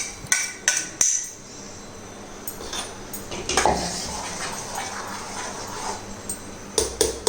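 Kitchen utensils and pots clinking and knocking: a few sharp clinks at the start, a short clatter midway and two more clinks near the end, with a faint steady hiss between them.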